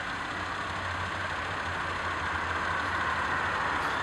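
A vehicle engine idling steadily over road traffic noise, with the traffic swelling a little about halfway through as a car approaches.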